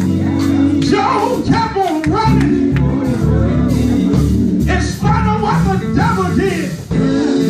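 A men's gospel group singing live in a hall, with voices bending over steady low instrumental notes from a band.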